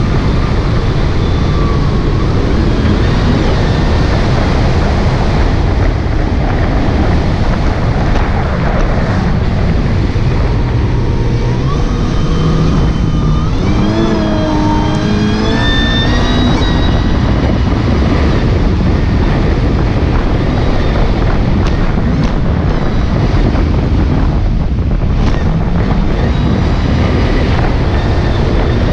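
Kawasaki jet ski running at speed, with heavy wind buffeting the microphone and water rushing along the hull. About twelve seconds in, the engine note climbs for a few seconds and then settles back into the steady rush.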